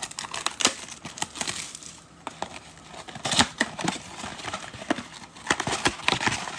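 Football trading card packs and their cardboard box being handled: irregular clicks and taps with the crinkle of foil pack wrappers.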